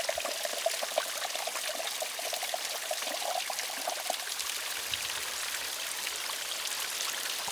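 Water being poured into a freeze-dried meal pouch, a gurgling pour that stops about four seconds in. Small clicks and a steady hiss run behind it.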